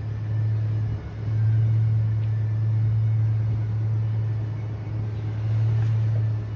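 A steady low rumble that dips briefly about a second in.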